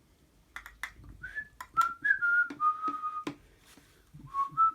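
Someone whistling a short run of held notes that step downward, with sharp clicks and taps from small toys being handled.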